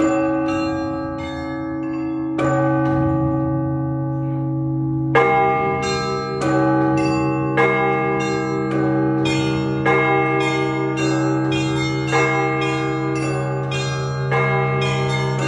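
Russian Orthodox church bells ringing a zvon, the peal that calls worshippers to a service. Big bells hum underneath while smaller bells are struck in quick patterns. The ringing thins out for a moment, then the full peal comes back in with a loud stroke about five seconds in.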